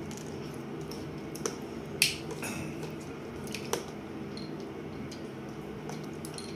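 A few sharp little plastic clicks, the loudest about two seconds in, as the pieces of a small three-piece plastic toy shark are snapped together and the plastic capsule halves are handled on a high-chair tray, over a steady low hum.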